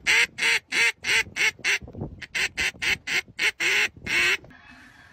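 Duck call quacking in quick short blasts, about four a second, as a black Labrador holding it in its mouth pants through it. The blasts stop about four and a half seconds in.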